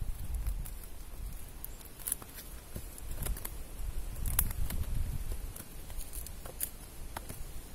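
A knife cutting through the nylon mesh of a gillnet to free a carp: scattered sharp snips and clicks over a low rumble.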